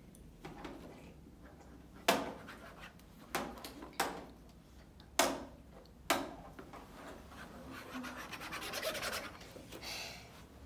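Stylus scraping across the screen of a children's magnetic drawing board: about five short, sharp strokes, then a longer stretch of fast scratchy rubbing near the end.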